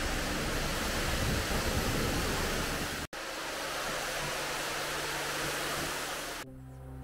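Water spraying from a pressure washer in a steady hiss, broken for an instant about three seconds in and then carrying on. Near the end the spray stops and music comes in.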